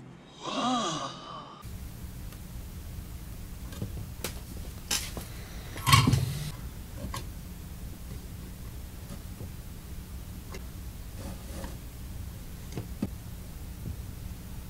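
A short, drawn-out exclamation in a man's voice from an inserted film clip. Then faint clicks and handling noises from hands working among the wires and parts of a metal electronics chassis, with one louder knock about six seconds in, over a steady low hum.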